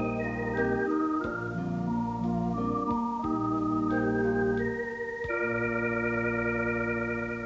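Organ music: a melody of held notes over a sustained bass line, settling on a long held chord about five seconds in.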